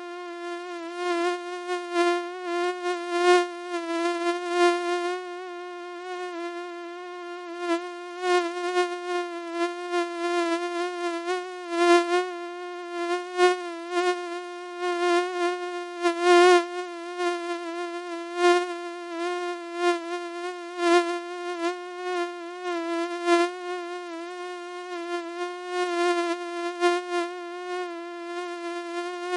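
Mosquito's wingbeat whine: one steady buzzing tone, wavering slightly in pitch, that keeps swelling louder and fading again as if the insect were flying close past the ear.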